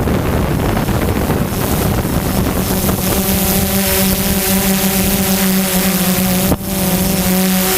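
DJI Phantom 2 quadcopter's motors and propellers giving a steady buzzing hum in flight. Wind rushes over the microphone and covers the hum for the first three seconds or so, and the sound cuts out briefly about six and a half seconds in.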